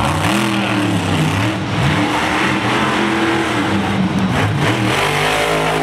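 Monster truck engine revving up and down repeatedly, climbing to a high rev near the end.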